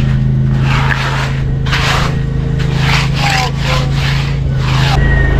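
An engine runs steadily under a series of short scraping strokes, a tool working through wet concrete, about eight in a row.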